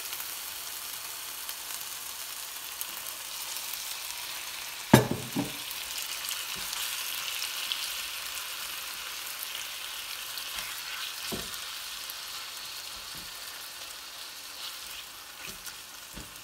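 Marinated chicken pieces sizzling as they fry in ghee in a non-stick wok, a steady hiss, while being stirred. A few knocks against the pan, the loudest about five seconds in.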